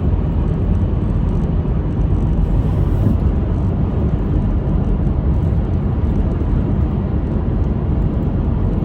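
Steady road and engine noise inside a moving car's cabin, a low even rumble with no sudden sounds.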